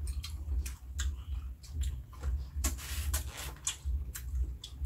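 Lychees being peeled and eaten by hand: an irregular string of small clicks and crackles from the shells cracking and the skins tearing, mixed with mouth and chewing sounds, over a low rumble.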